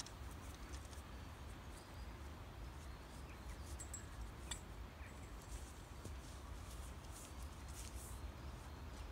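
Wind rumbling on the microphone, with faint high bird chirps and a sharp click about halfway through as loose stones are handled.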